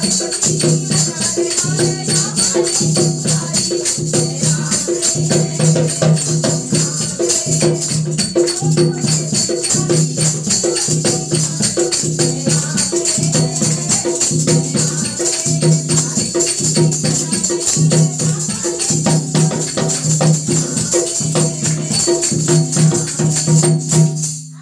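Women singing a Hindu devotional bhajan together to a dholak, with hand clapping and a steady jingle of hand percussion. It cuts off abruptly at the very end.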